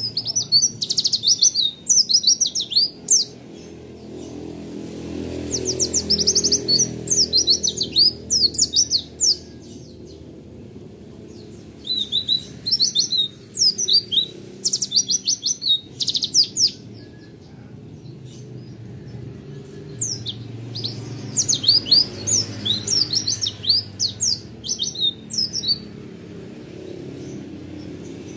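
Caged white-eye (pleci) singing in long bursts of very fast, high, sliding chirps, the rapid rolling 'roll tembak' song, with pauses of a few seconds between phrases. There are four phrases: near the start, about 5 s in, about 12 s in and about 20 s in.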